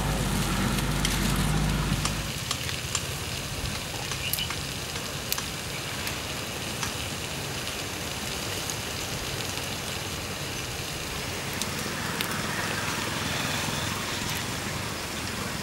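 Wood fire crackling under a stone slab, with a steady hiss from small fish sizzling on the hot stone and scattered sharp crackles. A low rumble underneath stops about two seconds in.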